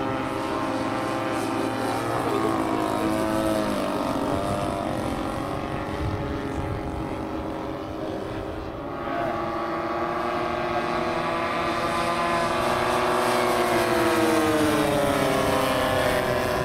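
Engines of large scale radio-controlled model aircraft running at speed in flight, their pitch rising and falling as the models fly past, with a long drop in pitch near the end.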